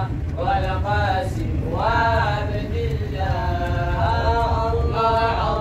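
Voices chanting an Islamic devotional song praising the Prophet Muhammad, with long, wavering melismatic held notes, over a steady low rumble.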